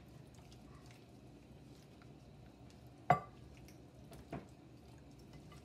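A gloved hand turning raw marinated chicken drumsticks in a glass baking dish: faint handling sounds, with a sharp knock on the dish about three seconds in and a softer one about a second later.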